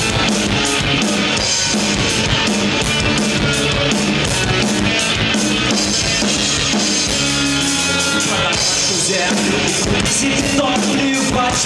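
Live heavy rock band playing an instrumental passage on electric guitars, bass guitar and drum kit. Past the middle the drum hits thin out for a couple of seconds while held chords ring, then the full band comes back in.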